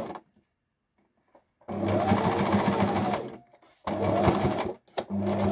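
Electric sewing machine stitching in short runs. It stops right at the start, then runs for about a second and a half, pauses briefly, runs for about a second, and starts up again near the end.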